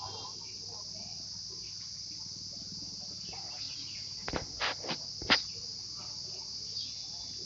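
Steady, high-pitched drone of insects in the trees. A quick cluster of sharp knocks comes about four to five seconds in, the last one the loudest.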